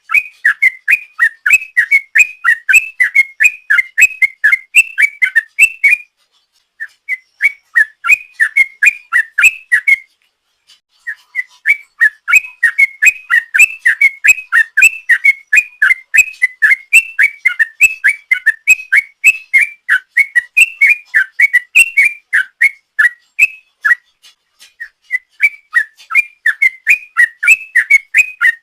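Yellow-vented bulbul (trucuk) singing a long, rapid 'ropel' song: quick whistled notes at about four a second, in long runs broken by three short pauses.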